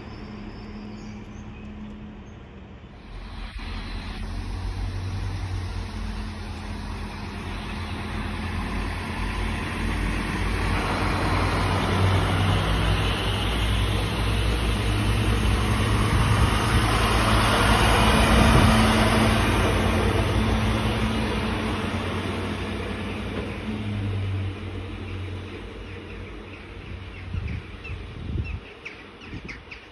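Alstom Coradia LINT diesel railcar passing close by. Its engine hum and running noise build up, are loudest about two-thirds of the way in, then fade as it pulls away down the line.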